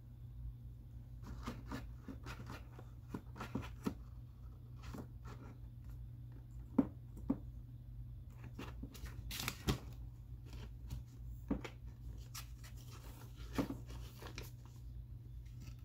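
Loose papers and folders rustling and crinkling under a cat crawling over them, in irregular scattered crackles that are loudest around seven and ten seconds in.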